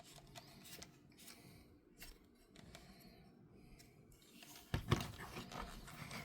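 Plastic action-figure horse being handled: faint scattered clicks as its articulated plastic legs are moved, then a sharper plastic knock about three-quarters of the way through followed by rubbing and handling noise.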